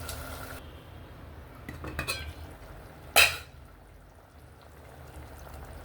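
Metal cookware and utensils clinking, with one short, sharp clang about three seconds in.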